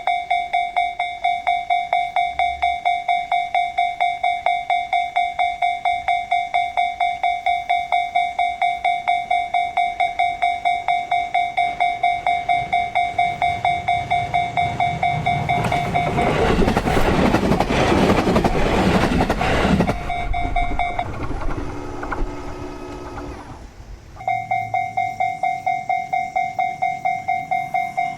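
Japanese level-crossing alarm bell ringing its rapid, even 'kan-kan' ding. Partway through, an Ome Line train passes loudly over the crossing for a few seconds. The bell stops, the train fades away, and near the end the bell starts ringing again.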